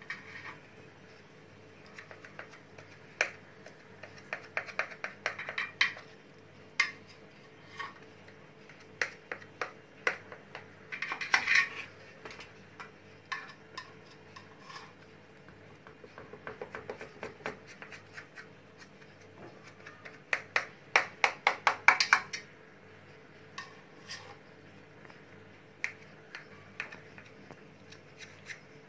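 Scattered sharp clicks and taps of a knife and fingers against a metal baking pan as a syrup-soaked semolina cake (basbousa) is handled and cut into pieces. There are quick runs of ticks about five, eleven and twenty seconds in.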